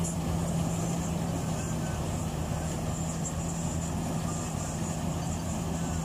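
KS rice combine harvester running steadily while cutting and threshing paddy: a constant engine drone with a steady low hum and a high hiss.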